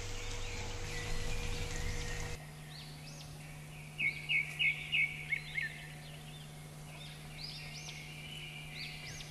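Chopped onions frying in hot oil in a pan, a steady sizzle for the first two seconds or so, which stops abruptly. A bird then chirps in quick runs of short chirps around the middle and again near the end.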